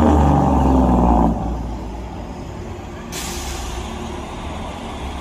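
Heavy diesel semi-truck engine running, loud and pitched for about the first second, then dropping to a low steady rumble. A steady hiss starts abruptly about three seconds in.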